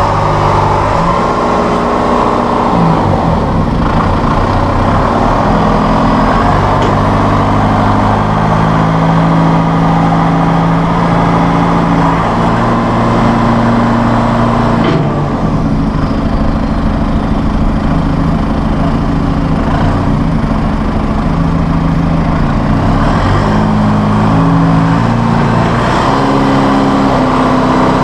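John Deere 5101E tractor's 4.5 L PowerTech diesel engine running while the tractor manoeuvres and lifts its loader, its pitch shifting up and down in steps.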